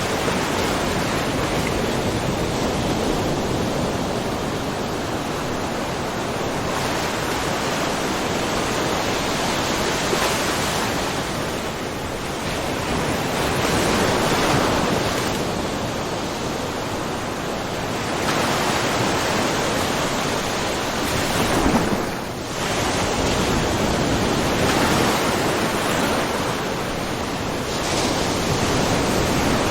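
Small ocean waves lightly splashing in a mussel cove: a continuous wash of surf that swells and eases every few seconds, with one sharper splash about three quarters of the way through followed by a brief lull.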